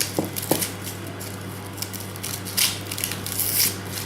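Kitchen food-prep handling noises: a few light taps, then short crisp rustles about halfway through and near the end, over a steady low hum.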